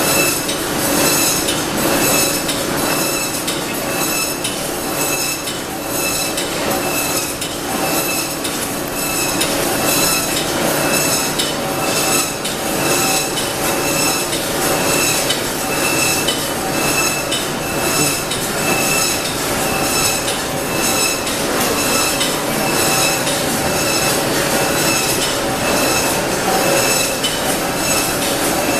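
Overhead poultry shackle conveyor and automatic cut-up machinery running: steady metallic clattering with regular clicks and a high steady whine.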